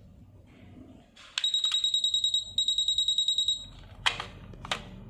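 Wireless nurse call pager receiver sounding its alert, a rapid high-pitched beeping at about nine beeps a second in two short runs, signalling an incoming call from a patient's call button. Two sharp clicks follow near the end.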